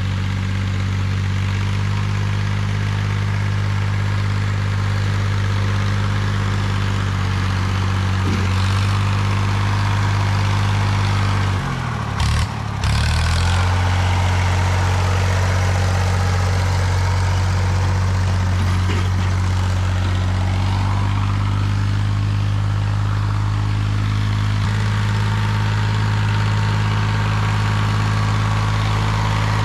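Diesel engine of a blade-equipped machine clearing stumps and roots, running steadily. About twelve seconds in its pitch dips briefly, then recovers.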